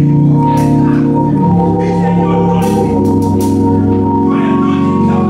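Church organ music: held chords that shift every second or two, played under prayer.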